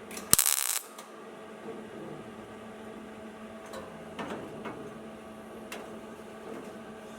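A sharp click followed by a loud hiss of about half a second, then a steady mechanical hum with a few light clicks.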